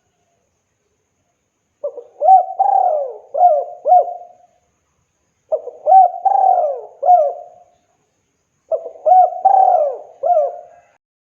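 Spotted dove (tekukur) cooing: three repeated song phrases, each a quick run of several rising-and-falling coos lasting a couple of seconds, with short pauses between.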